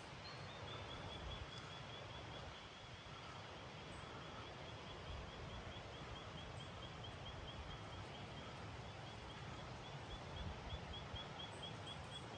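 A bird calling a long, even series of short high chirps, several a second, that runs almost the whole time.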